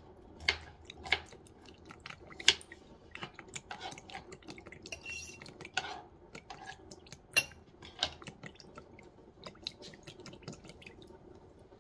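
Liquid dripping and dribbling from an upturned glass bottle into a small plastic bowl: irregular drips and splats, a few of them sharp and loud, with a brief thin trickle about five seconds in.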